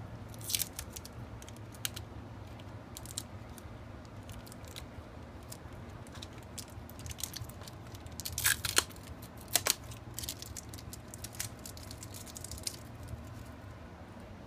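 Adhesive tape being peeled off the assembled backrest handle and arms: scattered short crackles and rips, the loudest cluster a little past halfway, over a low steady hum.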